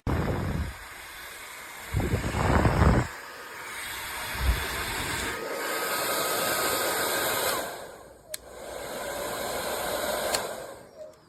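Revlon infrared ionic hair dryer running, a steady rush of blown air with heavy gusts buffeting the microphone in the first few seconds. The airflow drops off about two-thirds of the way through, comes back after a sharp click, and winds down near the end.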